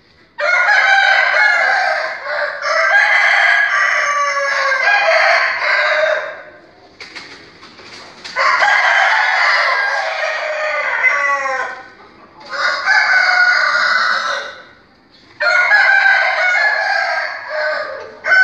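Caged Aseel and Shamo game roosters crowing, loud, in four bouts with several crows overlapping and short pauses between bouts.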